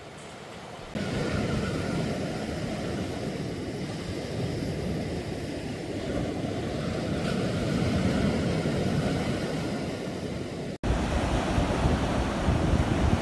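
Sea waves washing onto a beach, heard as a steady rushing, with wind buffeting the microphone. The sound steps up about a second in and breaks off sharply near the end into a louder stretch.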